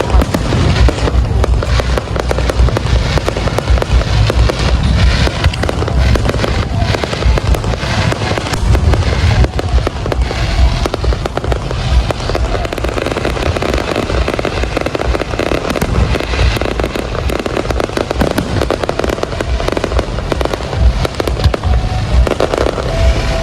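Aerial fireworks going off in a dense, continuous barrage of booms, bangs and crackles, with music playing alongside.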